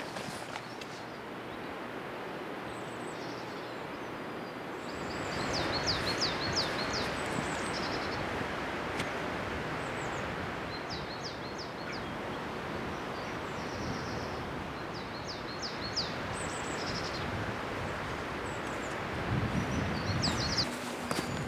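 Songbirds singing short phrases of quick, high repeated notes again and again, over a steady rushing noise that grows louder about five seconds in. A few soft thuds near the end.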